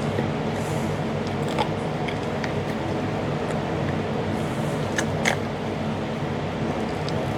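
A steady machine hum runs throughout, with a few light clicks and taps at about one and a half seconds and around five seconds in.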